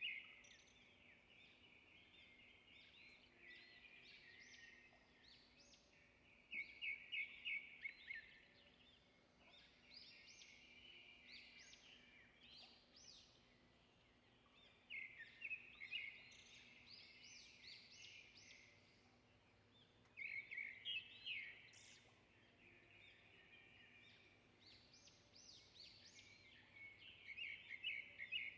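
Faint birdsong: rapid chirping and trilling phrases that come in bursts every few seconds, over a faint steady hum.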